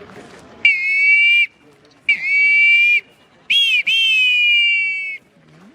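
Eagle-cry whistle blown three times: shrill, high-pitched calls, each opening with a quick upward swoop, then held with a slight fall. The third call is the longest, with a brief break just after it starts.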